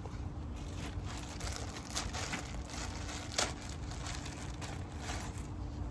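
Plastic wrapping crinkling and rustling as an animatronic's costume dress is unpacked and handled, with a sharper click about three and a half seconds in.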